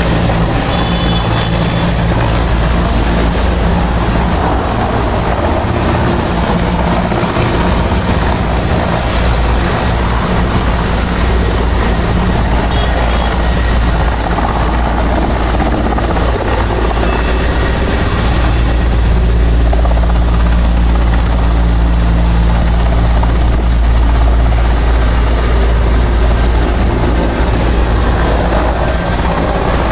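Indian Air Force Mi-17 transport helicopter flying low to land: steady beating of the main rotor over the running of its twin turbine engines. It gets louder a little past halfway through.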